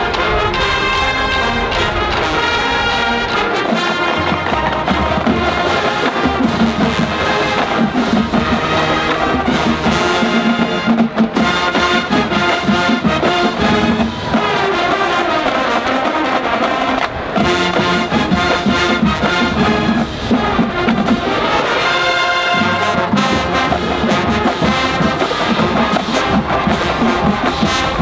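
Instrumental music led by brass instruments, playing continuously.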